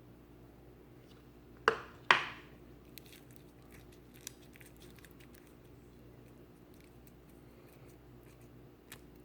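Slime being handled by hand: two loud sharp pops close together about two seconds in, then faint scattered clicks and crackles.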